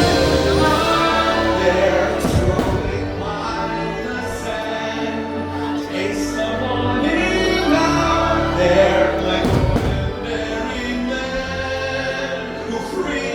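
Fireworks show soundtrack: orchestral music with choir singing, with sharp firework bursts going off about two seconds in and again near ten seconds.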